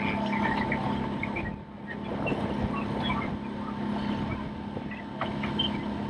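Motorboat engine running at a steady speed, with a constant hum and drone.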